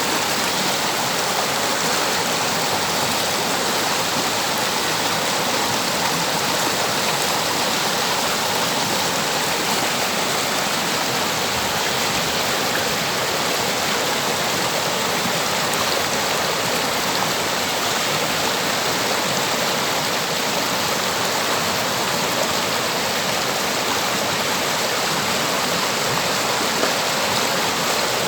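River water flowing and splashing over rocks, a steady rushing hiss with no change.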